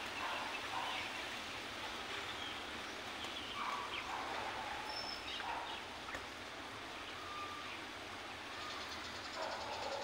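Scattered short bird calls and chirps from a pair of small birds fighting, over a steady background hiss.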